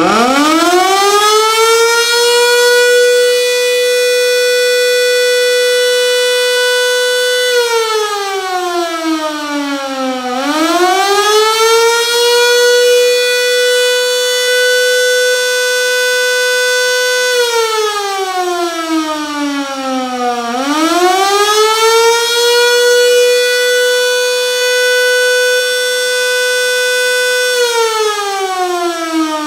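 A 120-volt Federal Signal Model 2 electromechanical siren, running on newly replaced field windings, winding up to a steady single tone. It holds the tone for about four seconds, then winds partway down and spins back up, three times over, in a wail-like rise and fall.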